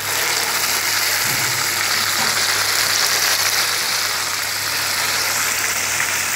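Boiled lasoda (gunda) fruits hitting hot oil and ghee in a kadhai: a loud sizzle that starts suddenly as they go in and carries on as a steady hiss of frying while they are stirred.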